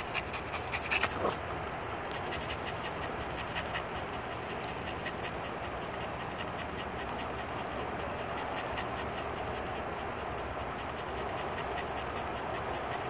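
A Yorkshire terrier panting rapidly and evenly close to the microphone, over a steady rushing background noise.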